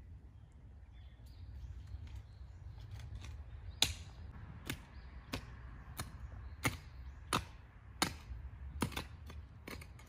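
A short-handled hoe chops into loose soil while potatoes are dug out of a ridge, with a sharp scraping click at each stroke. The strokes come about one every two-thirds of a second and grow sharper and louder from about four seconds in.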